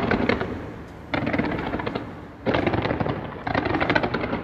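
Aerial fireworks display: four rattling volleys of rapid bangs and crackles in quick succession, each about a second long.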